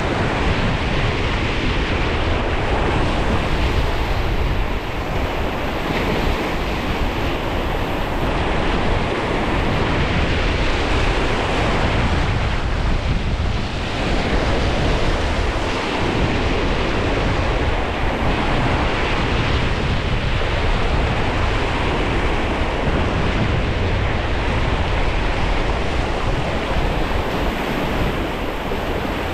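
Strong wind blowing over the microphone: a loud, steady rush with heavy low buffeting and no break.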